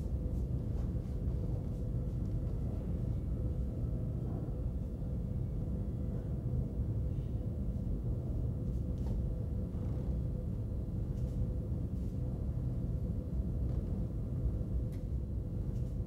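Steady low rumble and hum with a faint steady tone above it, broken only by a few faint ticks.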